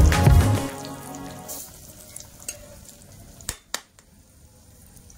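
Egg pakoras sizzling as they deep-fry in hot oil in an iron kadai, a steady fine crackle. Background music fades out over the first second or so, and two sharp clicks come about three and a half seconds in.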